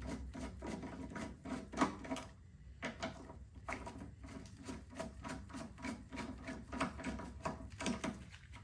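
A hand tool backing out the two screws that hold a snowblower carburetor on: a run of small metal clicks, about four a second, with a short pause about two and a half seconds in.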